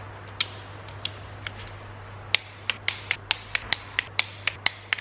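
Hand ratchet wrench clicking: a few single clicks, then from a little past the middle an even run of about four clicks a second, as bolts on the engine block are tightened in sequence. A steady low hum runs underneath.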